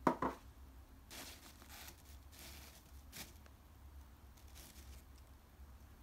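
Soft rustling and tearing of tissue paper in several short spells as fingers peel open the paper tube holding a tarantula. A short, sharp knock comes right at the start and is the loudest sound.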